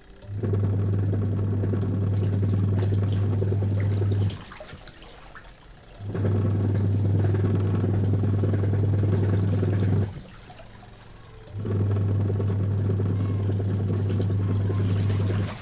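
Factory machine running in cycles: a steady, loud low hum for about four seconds, stopping abruptly for a second or two, then starting again, three runs in all.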